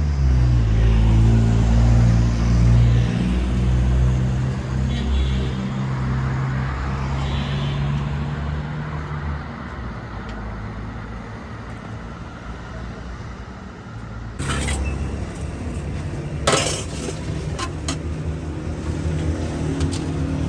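Street traffic: a nearby vehicle's engine runs loudly with a steady low drone for about the first half, then fades into general road noise. A couple of sharp clatters come near the end.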